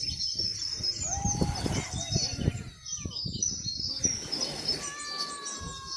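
A flock of small birds chirping and twittering continuously, with low rumbling underneath and a steady held whistle-like tone starting near the end.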